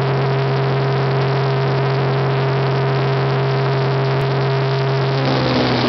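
Cirrus SR20's single piston engine and propeller droning steadily, heard inside the cabin: a strong low hum with a steadier higher tone above it over a wash of noise. About five seconds in, the note changes to a different pitch.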